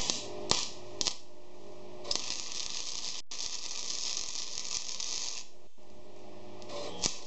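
Small wire-feed welder's arc: three short tack strikes in the first second, then a steady crackling bead for about three and a half seconds with one brief break, and another short strike near the end.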